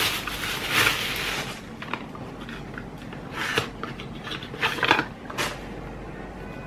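Paper being handled at a desk: rustling in the first second or so, then scattered light clicks and taps of small items being picked up and set down.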